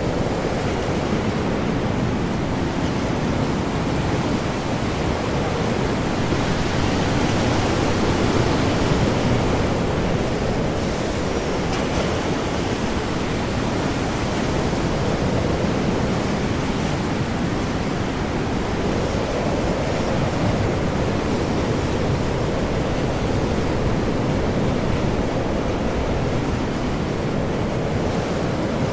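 Ocean storm: heavy waves surging under high wind, a dense steady rush that swells and eases slowly every few seconds.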